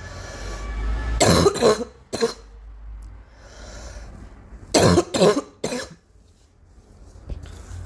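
A girl coughing in two fits of about three coughs each, the first starting about a second in and the second about five seconds in.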